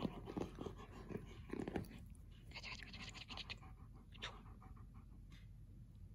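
German Shepherd dog panting in quick, short breaths, with a few short, low sounds from its mouth in the first two seconds.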